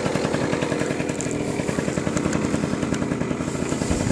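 Yamaha Passol 50 cc two-stroke moped engine idling steadily just after being started, a rapid, even putter.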